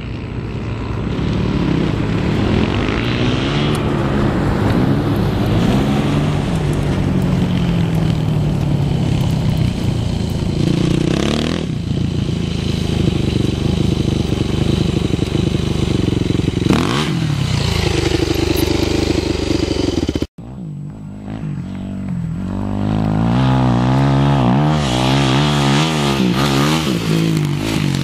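Dirt bike engines revving up and down while riding on sand, the pitch rising and falling with throttle and gear changes. The sound cuts off suddenly about twenty seconds in, and then a closer bike revs repeatedly.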